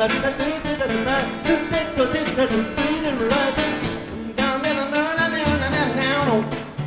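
Two acoustic guitars playing an instrumental break: a lead guitar with bending, sliding notes over a plucked accompaniment.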